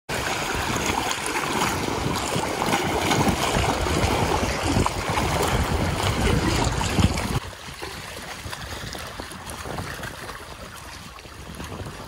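Sea waves washing and splashing against shore rocks, with wind buffeting the microphone. About seven seconds in the sound drops suddenly to a quieter wash of water.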